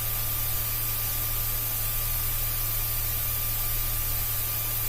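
Steady hiss with a constant low hum and a thin steady whine: aircraft cockpit noise as heard through the intercom feed, with no radio traffic.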